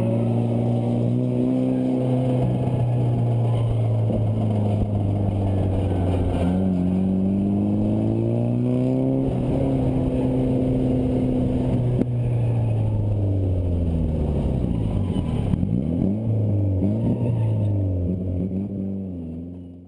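Nissan S13 Silvia's turbocharged engine drifting, revs rising and falling as the throttle is worked, with a quick drop and climb in pitch about two-thirds of the way through; the sound fades out near the end.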